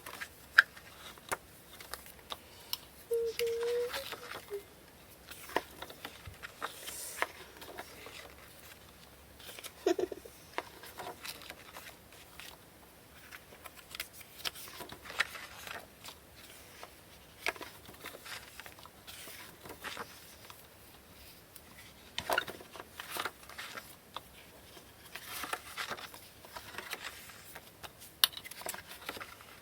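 Pages of a photobook being turned and handled: irregular rustles, light taps and paper clicks.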